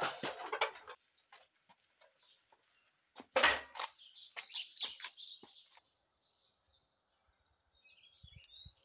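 Birds chirping, with scattered knocks and rattles from a sack truck carrying a metal engine, and one loud thump about three and a half seconds in.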